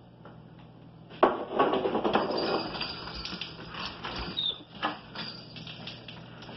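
A loud, noisy burst lasting about a second and a half, then clicking and rattling of a door handle and latch and a sliding glass door being pulled open, with a brief squeak.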